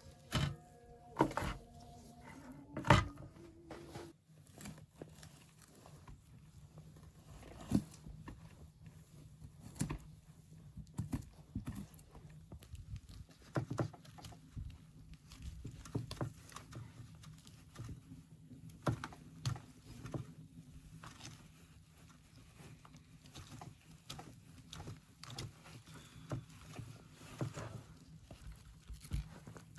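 Irregular knocks and taps scattered throughout, the loudest in the first three seconds along with some brief pitched sounds, over a faint steady low hum.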